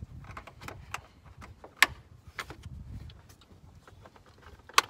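Plastic air filter housing lid and its hook-style clips being handled and fitted by hand, giving a run of light clicks and knocks with two sharper clacks, about two seconds in and near the end.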